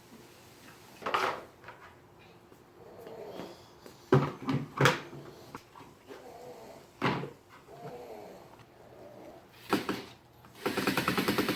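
Hard objects knocked and set down a handful of times, the loudest cluster about four to five seconds in, then a fast, even rattle near the end.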